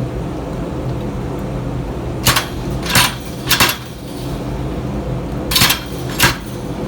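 Hammer striking steel on an anvil in five spaced, irregular metallic blows, two of them close together near the middle, over a steady low hum.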